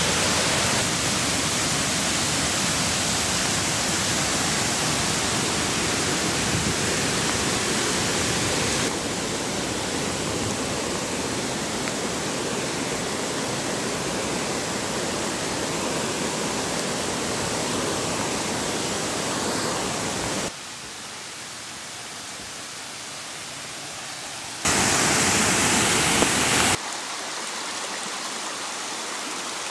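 Rushing water of a small rocky mountain stream and waterfall, a steady loud hiss. It jumps in level at several abrupt cuts, loudest for a couple of seconds near the end.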